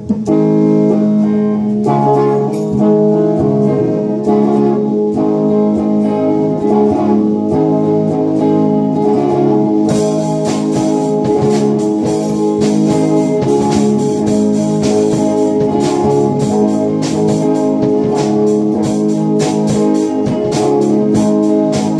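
Two electric guitars, one a hollow-body, playing an instrumental song intro with sustained chords and notes; a steady drum-machine beat with bright hi-hat ticks comes in about halfway through.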